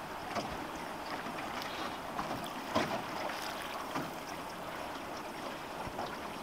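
River water lapping against a drift boat's hull, with wind on the microphone and a few light knocks and clicks now and then, the sharpest about three seconds in.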